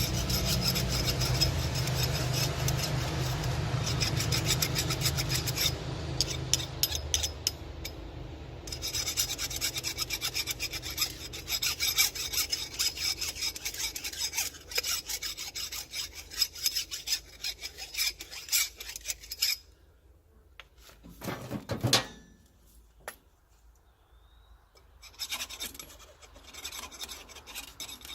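Hand file rasping on the freshly cut end of a steel drive shaft, deburring it: long runs of quick, even strokes, a pause with one loud knock, then a few more strokes near the end.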